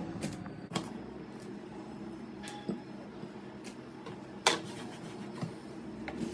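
Scattered light clicks and knocks of a kitchen knife working on a cutting board during vegetable prep, with one sharper knock about four and a half seconds in, over a steady low hum.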